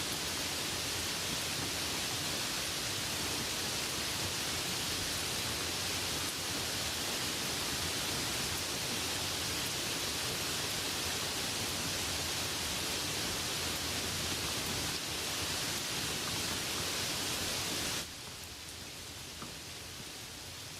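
Steady hiss of rain falling, dense and even. About 18 seconds in it drops suddenly to a quieter, lighter rain with a faint drop or two standing out.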